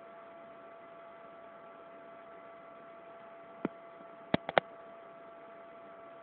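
Steady electrical hum with a thin whine. About three and a half seconds in comes a single sharp click, then three quick clicks about a second later, as a finger taps a phone's touchscreen.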